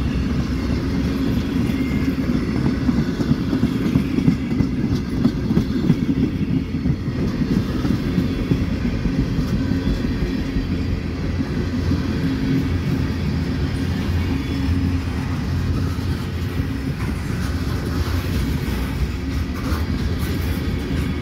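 Freight train's tank cars and covered hopper cars rolling past close by: a steady, loud rumble of steel wheels on rail.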